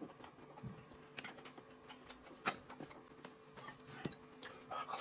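Faint eating sounds from a man chewing roast chicken and tearing it apart by hand: scattered soft mouth clicks and small knocks, the sharpest about two and a half seconds in, over a faint steady hum.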